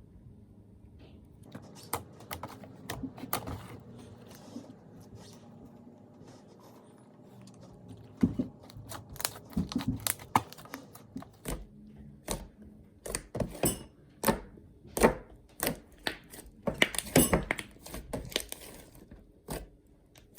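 Slime being squeezed, stretched and poked by hand, giving irregular sharp pops and clicks: sparse at first, then coming thick and fast from about eight seconds in.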